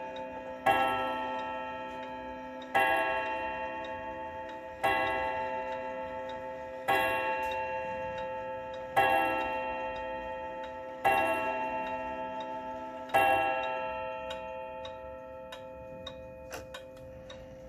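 Mauthe German wall clock striking the hour on its chime rods: seven identical strokes about two seconds apart, each ringing and fading into the next. The clock ticks faintly under them, and a few light clicks follow near the end as the hands are touched.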